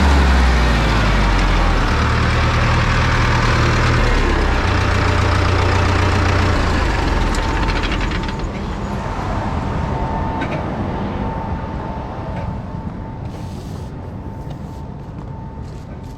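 Tractor engine working under load while grain is augered into a grain bagger, with a steady rushing of grain and machinery over the engine. About halfway through, the engine note drops away and the noise slowly eases, leaving a thin steady whine.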